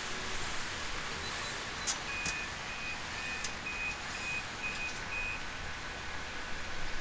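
A car's parking-sensor beeper sounding a run of short, even high beeps, about two a second, as the car is eased into position on the car-hauler trailer, over a steady hiss. A couple of sharp clicks come just before the beeps.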